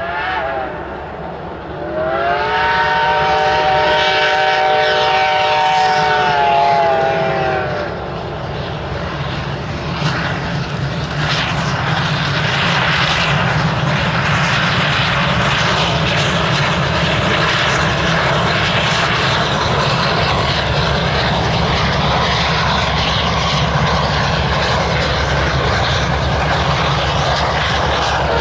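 Reading & Northern #425, a steam locomotive, sounds its steam whistle: a brief note at the very start, then one long chord-like blast from about two to seven seconds in that swells at the start and sags as it ends. A steady, loud rumble of the working locomotive then runs on.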